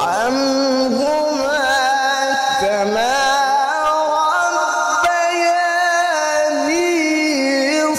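A male Quran reciter's voice in melodic tilawah, amplified through a handheld microphone, sweeping up at the start and then holding one long, high phrase with wavering melismatic ornaments.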